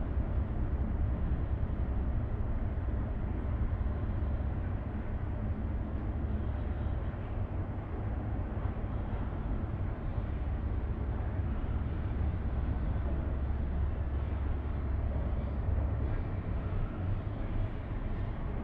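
Steady low rumble inside a cable car gondola travelling along its cable, with air noise around the cabin.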